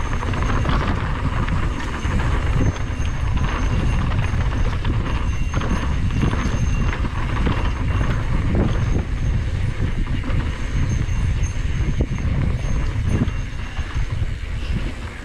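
Mountain bike riding fast along a dirt trail: wind rushes over the microphone while the tyres crunch on dirt and the bike rattles and clatters over bumps. It eases off near the end as the bike slows.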